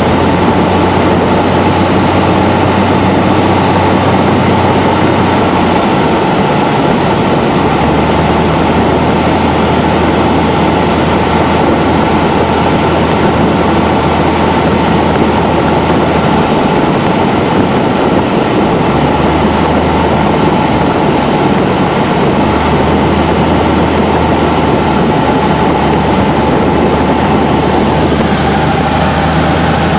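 Cessna 172 Skyhawk's piston engine and propeller running steadily in flight, heard from inside the cabin as a loud, constant drone. The low hum shifts slightly in pitch a few times.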